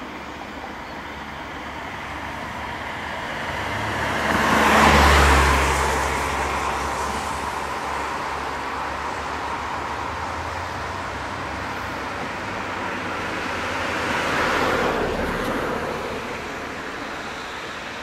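Motor vehicles passing close by twice, once about five seconds in (the loudest, with a deep engine rumble) and again about fifteen seconds in, over steady road traffic noise.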